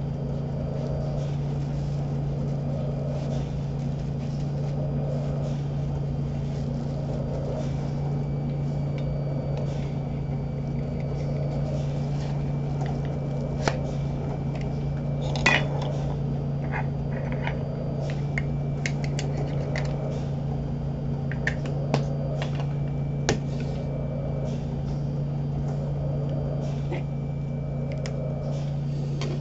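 Steady hum of a home mechanical ventilator, swelling in a slow rhythm about every two seconds with its breath cycles. In the middle, a scatter of sharp clicks and crackles from a collectible's packaging being handled, loudest about fifteen seconds in.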